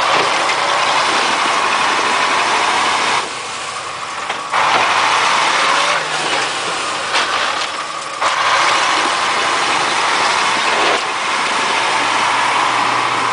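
Six-wheel-drive army truck's engine working hard under load as the truck ploughs through deep, wet snow. The engine drops back for about a second around three seconds in and briefly again near eight seconds, then pulls hard once more.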